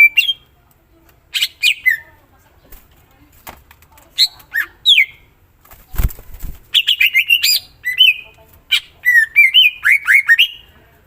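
Green leafbird (cucak ijo) singing in loud, varied bursts of sharp chips and quick sweeping whistles, sparse at first and then a fast, dense run of phrases in the second half. There is a brief low thump about midway.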